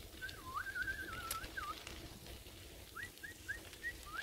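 Clear whistled notes: a wavering whistle of about a second and a half, then, after a short gap, a run of short rising whistles, about three a second.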